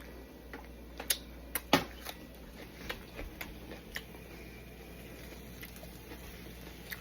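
A handful of sharp clicks and light knocks from small objects being handled in a kitchen, bunched in the first four seconds, the loudest a little under two seconds in. After that only a low steady background hum remains.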